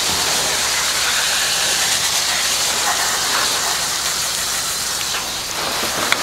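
Low-pressure water spray from a garden hose pistol nozzle, hissing steadily as it rinses degreaser off an engine bay and splashes over the engine and radiator.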